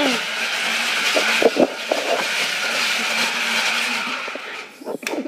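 Blender motor running steadily with a loud grinding rush as it crushes ice for shaved ice, with a couple of knocks about a second and a half in; it winds down shortly before the end.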